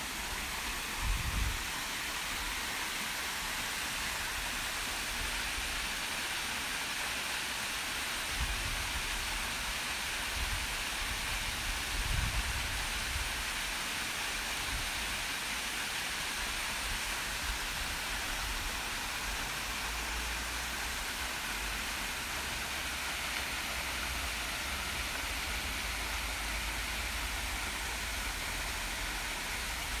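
A large waterfall rushing steadily into its pool, a constant hiss of falling water. A few low bumps come about a second in and again between about eight and thirteen seconds.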